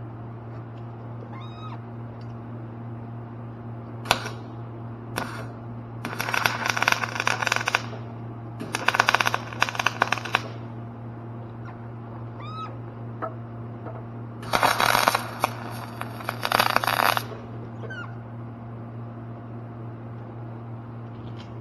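Repair work at a grinder-mixer over a steady electrical hum: two sharp metal knocks, then three bursts of harsh crackling, each one to two and a half seconds long, and a few faint short rising squeaks.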